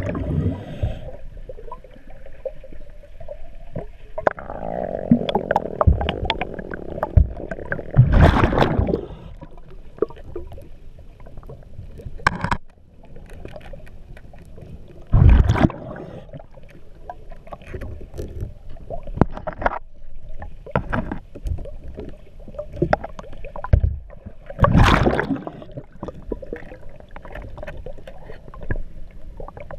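Underwater scuba breathing: exhaled bubbles from the diver's regulator rush out in three loud bursts several seconds apart, over a low underwater rumble with scattered clicks and knocks.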